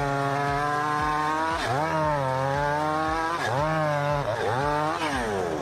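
Small engine running at high speed. Its pitch sags and recovers about four times, as if briefly loaded, then falls away near the end as it slows.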